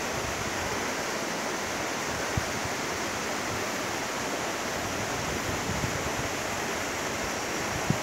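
Steady rush of waterfall cascades spilling over rocks into a river pool, an even hiss of water.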